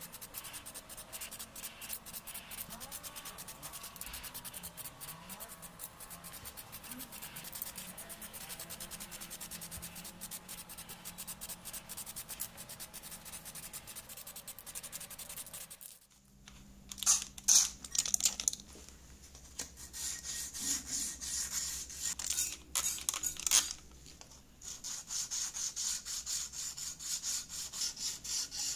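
A sanding block rubbed back and forth over a freshly painted pressed-steel toy part, wet-sanding the paint. It comes in bursts at first and settles into about two strokes a second. For roughly the first half there is only a faint, even crackle.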